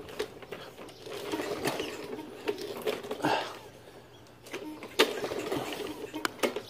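Walk-behind lawn mower's recoil starter pulled, a short rasping whir of the cord about three seconds in, with the engine turning over but not catching, among clicks and knocks of handling: a mower that won't start after winter storage.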